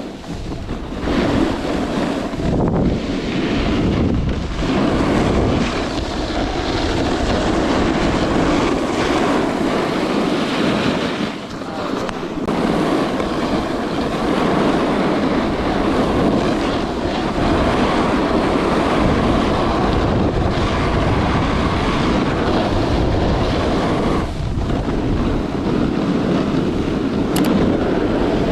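Wind rushing over the microphone with the hiss and scrape of a snowboard sliding on snow during a run, steady apart from a few brief dips.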